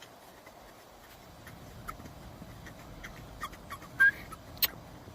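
Squeaky toy ball being squeezed: a few faint squeaks and taps, then one loud, short, high squeak about four seconds in, followed by a sharp click.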